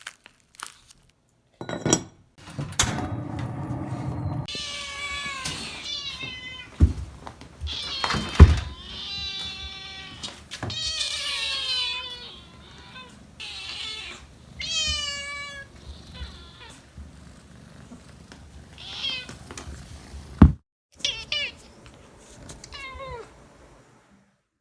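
Young kitten meowing over and over in short, high-pitched calls, some falling in pitch, with a few sharp thumps, the loudest about eight seconds in.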